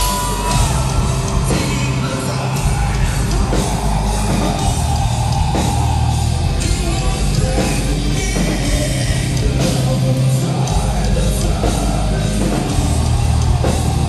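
Live heavy rock band playing loud, with drums and a male singer yelling and singing into the microphone.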